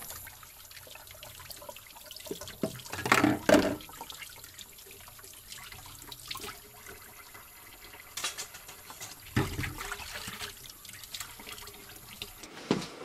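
Water running and sloshing with a steady hiss, broken by a few clinks and clatters of kitchenware; the loudest cluster comes about three seconds in. It is the sound of washing up by hand in a sink.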